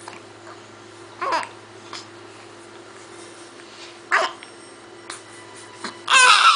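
Young child hiccuping: two short hiccups about three seconds apart, then a loud burst of babbling near the end.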